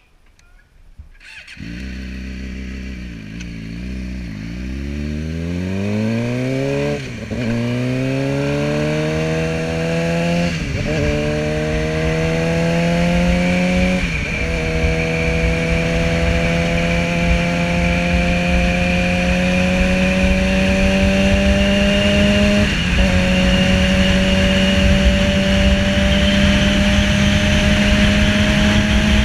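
Sport motorcycle engine pulling away and accelerating hard, its note climbing through the gears with four quick upshifts, then holding a steady cruise. Wind rushes over the helmet-mounted camera, louder as speed builds.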